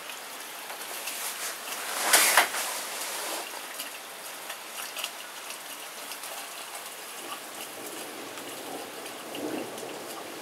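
Thunderstorm rain falling steadily, a dense hiss full of small ticks from drops hitting close by. About two seconds in there is a short, louder burst of noise.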